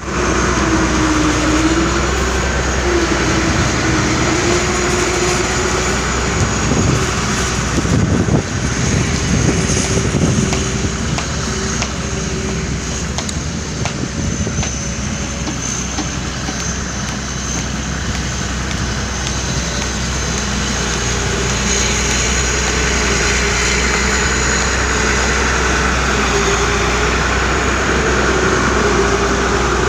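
Backhoe loader's diesel engine running steadily under load, its pitch rising and falling as the machine works. A rougher stretch of knocks and scraping comes about seven to eleven seconds in.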